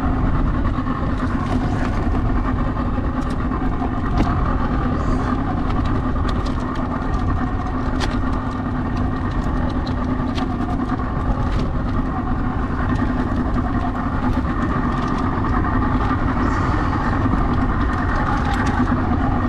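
Small boat's outboard motor idling steadily, with a few faint clicks.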